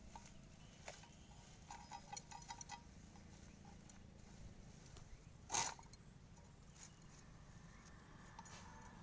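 Faint rustling, clicking and light clinking as peanut plants and dry pods are handled and plucked by hand, with a cluster of clicks about two seconds in and one short, louder rustle a little past halfway, over a faint low hum.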